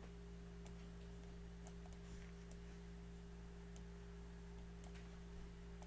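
Faint steady electrical hum with about five scattered faint clicks, like computer mouse clicks while an on-screen pointer is fetched.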